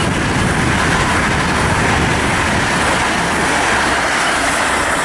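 ICE 3 high-speed electric train passing close at speed, a loud, steady rushing noise.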